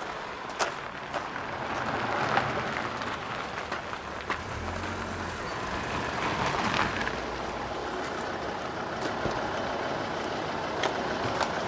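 Mercedes-Benz E-Class estate taxi rolling slowly in over a gravel drive: steady crunching of tyres on gravel under a low engine note, with scattered small clicks and knocks.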